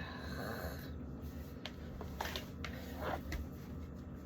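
Faint rustling and a few light clicks and knocks of things being handled, over a low steady hum.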